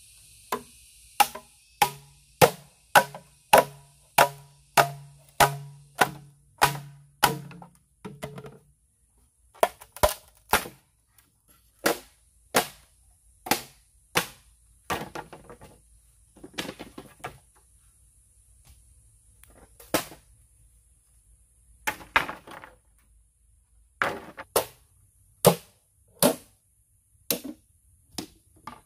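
Machete chopping into a standing green bamboo culm: a dozen or so quick strokes, nearly two a second, each with a short, low, hollow ring. After about eight seconds they give way to slower, irregular knocks and chops on bamboo.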